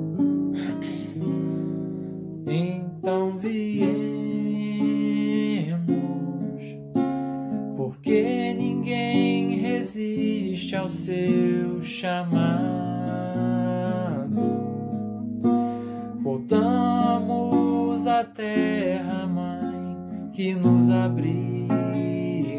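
A man singing a slow song in Portuguese, accompanying himself on a nylon-string classical guitar played with the fingers, the chords ringing under his voice in phrases of a few seconds each.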